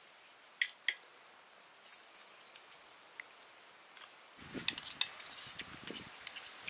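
Spoons and forks clicking and scraping lightly on plates as people eat, a few scattered clinks at a time. About four and a half seconds in, a busier run of clinks and handling noise begins.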